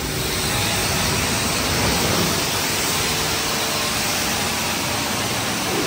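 High-pressure water spray hissing steadily and loudly.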